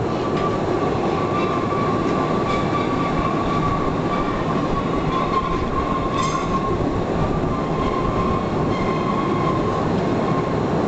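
Postojna cave's electric tourist train running along its track: a steady rumble with a high whine held throughout, and a single sharp click about six seconds in.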